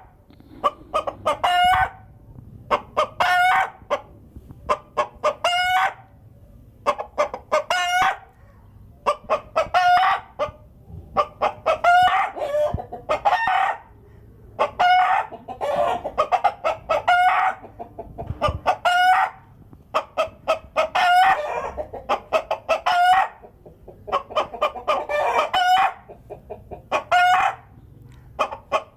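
Domestic hens cackling, the loud repeated egg song given around egg-laying, with calls coming about once a second and several birds overlapping in the middle.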